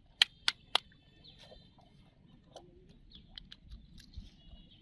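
Three sharp clicks in quick succession about a quarter second apart, then scattered faint ticks and thin high chirps over a low outdoor hiss.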